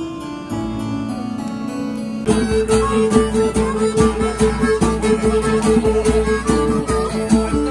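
Soft instrumental music for about two seconds, then a cut to a live Celtic-style folk band: strummed acoustic guitar and a bouzouki-type cittern over a steady held note, coming in suddenly and louder.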